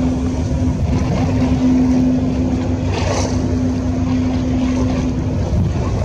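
Tour boat's engine running steadily, a constant low hum over a rumble, with wind buffeting the microphone. A short rush of noise comes about halfway through.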